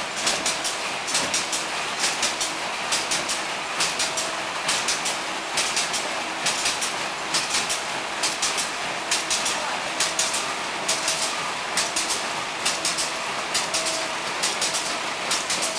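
Several vertical snack pouch packing machines running together: quick clusters of sharp mechanical clicks and clacks repeat about once a second over a steady machinery hiss.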